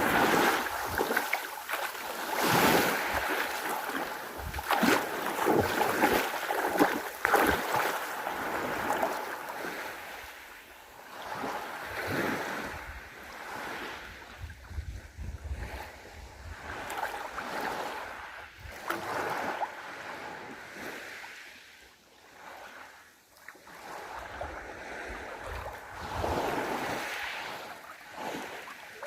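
Sea waves breaking and washing on the shore, swelling and fading, with wind buffeting the microphone.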